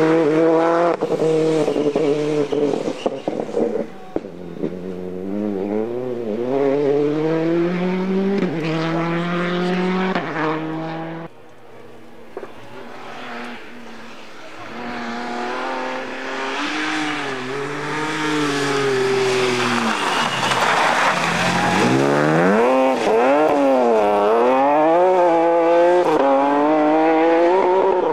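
Rally cars' engines at full throttle on a stage, pitch climbing through upshifts and falling as they lift off and brake for corners. The sound drops sharply about eleven seconds in, then builds again as the revs rise and fall through the bends.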